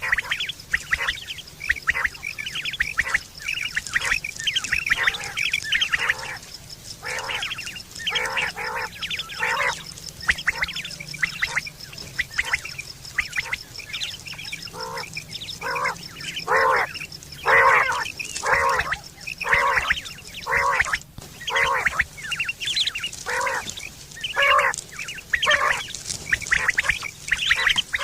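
Quails calling over and over: short, harsh notes in quick irregular runs of two to several, with hardly a pause between them. A faint steady high-pitched hum lies underneath.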